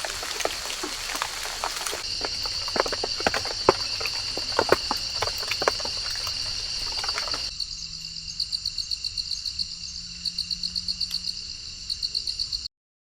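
Rain falling through woodland, pattering on fallen leaves with many distinct drips, under steady high trilling of insects. About seven and a half seconds in the rain cuts off and the insects carry on alone in rapid pulsing chirps, until the sound cuts off shortly before the end.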